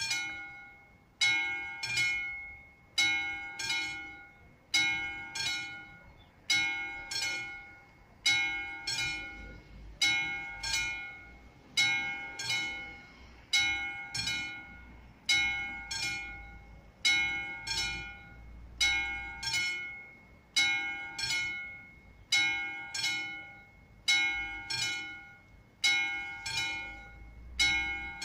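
Classic electromechanical warning bell of AŽD 71 level-crossing signals, starting up and striking in a steady rhythm, about every second and a half to two seconds, each stroke ringing on and fading. It signals that the crossing has been activated for an approaching train.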